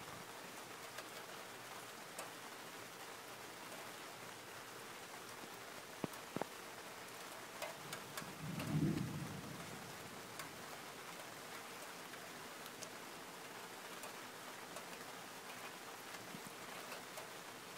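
Steady rain falling, with a brief low rumble of thunder about nine seconds in. A few sharp drip taps land close by just before it.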